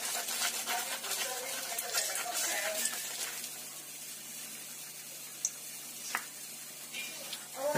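Hot oil sizzling and crackling as doughnuts fry, a steady stream of fine crackles that is louder for the first three seconds or so and softer after.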